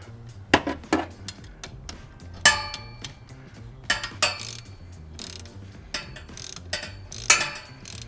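Ratchet wrench clicking in short, uneven runs, with metal clinks from bolts and tool on the shifter mount under the car.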